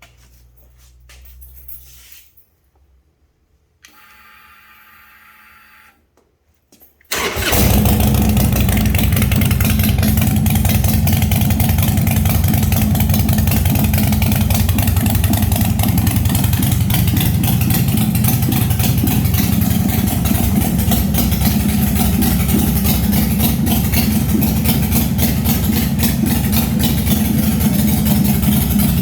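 A 2022 Harley-Davidson Forty-Eight's 1200 cc V-twin, fitted with a new custom exhaust, starts abruptly about seven seconds in and then idles loud and steady. Before that there are a few quiet seconds with a brief steady hum.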